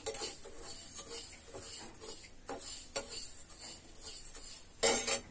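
A metal spoon stirring and scraping dry sugar in a small black kadhai, a run of light, irregular clicks and scrapes as the sugar is heated without water to melt it. A louder brief sound comes near the end.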